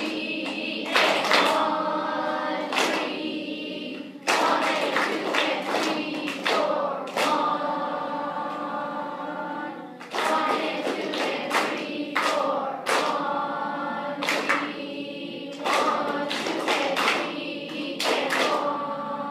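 Beginning school band playing an exercise together: a string of held notes, each a second or two long, starting with a sharp attack and changing pitch from note to note.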